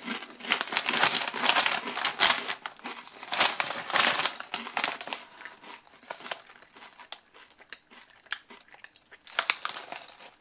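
Lorenz Crunchips crisp bag crinkling as it is handled and turned over in the hands. The crackle comes in irregular bursts, busiest in the first half, thinner in the middle, with another flurry near the end.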